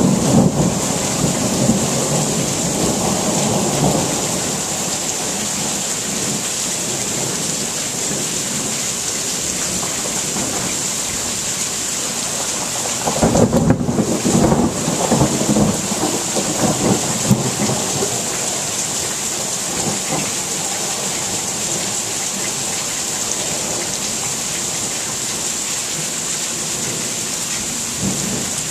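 Steady rain with thunder rumbling: one rumble dies away about four seconds in, and another comes about thirteen seconds in and lasts a few seconds.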